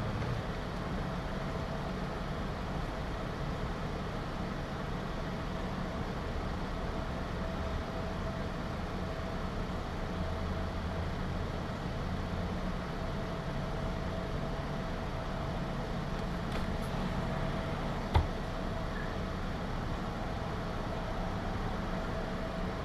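Steady low mechanical hum with a thin steady tone above it, and a single sharp click about eighteen seconds in.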